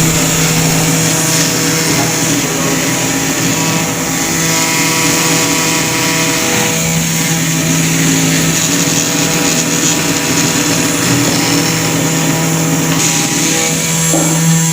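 Mini CNC machine running: a steady motor hum with even overtones under a constant hiss, unchanged in pitch.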